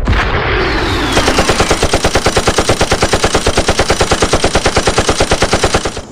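Rapid machine-gun fire sound effect, about eight shots a second, starting about a second in and stopping abruptly near the end. Before the gunfire there is a short falling whine.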